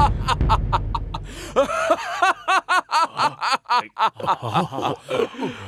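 A man laughing loudly in mockery, a rapid 'ha-ha-ha' of short repeated bursts, about five a second. There is a low rumble under the first second.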